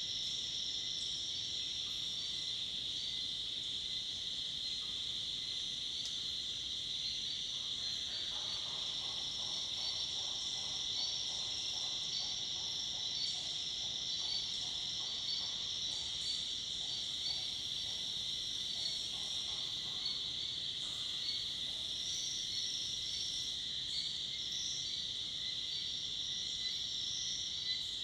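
Dusk chorus of tropical forest insects: a dense, steady, high-pitched shrilling. From about a third of the way in until past the middle, a fainter, lower pulsing call joins underneath.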